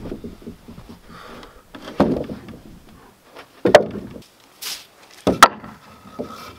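Wooden boards and blocks knocking onto timber floor joists as lumber is set down and shifted, in several separate knocks a second or two apart.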